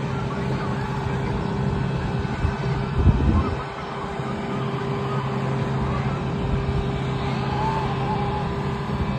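Steady mechanical hum with a constant low drone and a fainter held tone above it, typical of machinery running on an airfield ramp. A brief loud low rumble comes about three seconds in.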